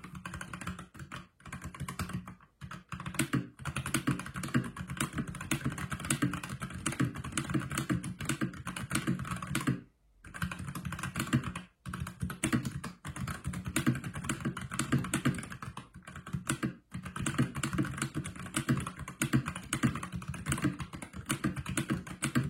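Fast continuous typing on an Akko Horizon 5087B Plus mechanical keyboard with tactile Jelly Black switches, a dense stream of key clicks with a few brief pauses, the longest about ten seconds in.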